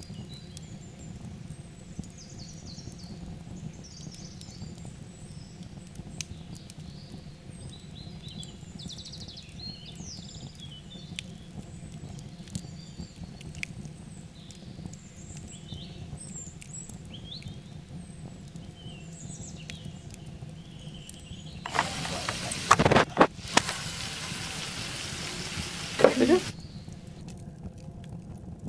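Marinated chicken pieces sizzling loudly in a hot frying pan as butter goes in. The sizzling starts about 22 seconds in, lasts about four seconds and stops abruptly. Before it there are only faint high chirps over a low steady background.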